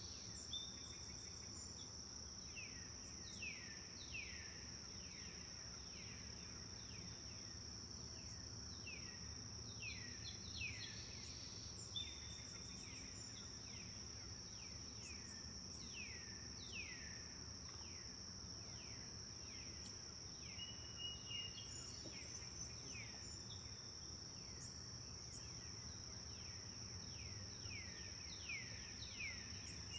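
Forest ambience: a steady high-pitched insect drone, with birds calling over it in many short notes that slide downward in pitch, often in quick runs, and a few short level whistles.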